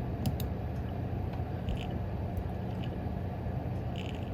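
Desktop PC fans running steadily at low speed: the EVGA RTX 3060 Ti FTW3 Ultra's fans back on their auto setting together with the case fans. Two faint clicks come shortly after the start.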